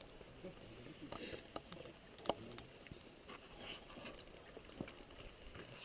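Faint light clicks and knocks of plates, cups and cutlery being handled, the sharpest a little over two seconds in, over low background noise.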